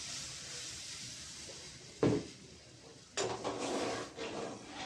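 Water poured from a jug into a steel cooking pot, trailing off; a single knock about two seconds in; then a spoon stirring and scraping in the steel pot of curry.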